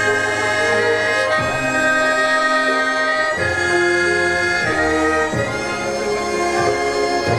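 Korean traditional gugak orchestra playing an instrumental passage: held chords in reed winds and bowed strings, moving to a new chord every second or two.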